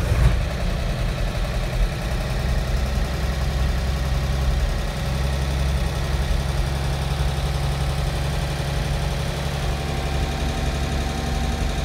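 Chevrolet 235 cubic-inch straight-six engine idling steadily just after start-up, heard from inside the truck's cab.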